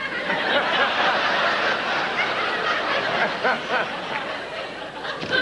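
Studio audience laughing together in a long, loud wave of laughter that eases off slightly near the end.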